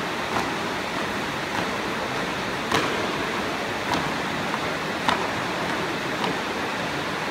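A marching squad's boots stamping on a hard hall floor in unison, one sharp stamp a little more than once a second, over a steady hiss of hall noise.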